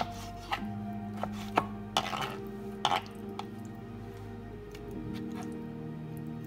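Kitchen knife cutting through raw beef and knocking on a cutting board, several irregular sharp knocks mostly in the first three seconds, over background music with held notes.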